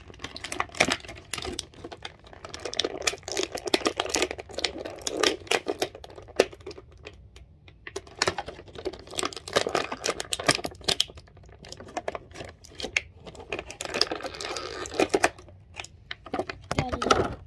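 Clear plastic bag crinkling and crackling in irregular bursts as it is handled and pulled open, with short quieter pauses.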